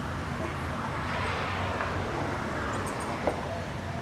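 City street traffic noise: a steady hum of traffic with a vehicle passing, swelling in the middle, and one short sharp click about three seconds in.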